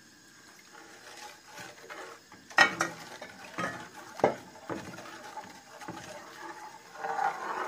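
Metal spoon stirring custard mix into hot milk in a steel pan: liquid swishing, with several sharp clinks and knocks of the spoon against the pan.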